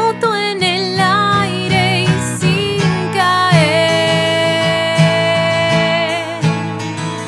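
A woman singing over a strummed acoustic guitar. Her voice comes in at the start and holds one long note through the middle.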